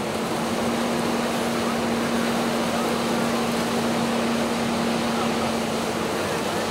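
A fire engine's pump running with a steady hum, under a continuous rushing noise from hose streams on the burning house.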